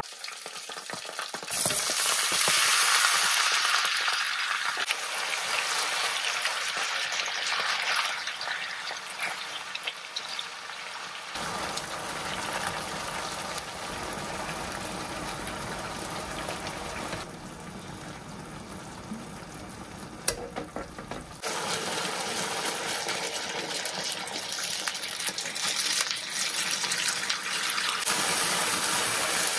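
Kitchen cooking sounds in several short cuts: a steady hiss, changing abruptly between cuts, with occasional clinks.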